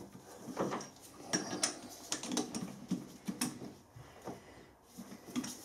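Metal blank being set in a four-jaw lathe chuck: irregular clicks and clunks of the workpiece against the jaws and of the chuck key turning the jaw screws.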